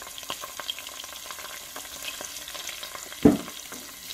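Tomato paste and spices frying in hot oil in a metal pot, a steady sizzle with fine crackling. A single loud knock about three seconds in.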